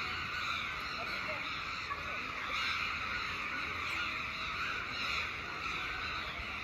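A large flock of crows cawing all at once, their calls overlapping into a dense, unbroken chorus.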